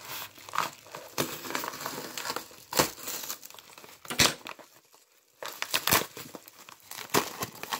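Hands crinkling and tearing open a padded kraft bubble mailer: a run of paper-and-plastic crinkling with a few sharp crackles and a short lull a little past halfway.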